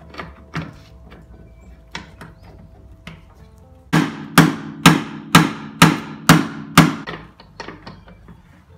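Hammer striking metal while an S10 brake booster is fitted into a Pontiac Fiero: a few light knocks, then about four seconds in, seven hard blows about two a second, each ringing briefly, trailing off into lighter taps. Faint background music runs underneath.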